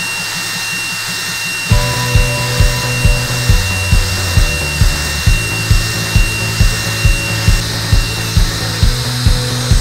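Yeti Smartbench CNC router's Mafell spindle routing into sheet material: a steady high whine over the rushing noise of the cut. About two seconds in, background music with a steady beat comes in over it.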